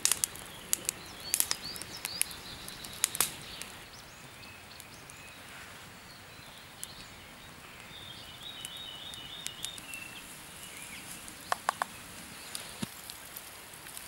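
Wood campfire crackling, with scattered sharp pops mostly in the first few seconds. Small birds chirp, one giving a quick repeated trill about eight seconds in, and three quick clicks come close together near the end.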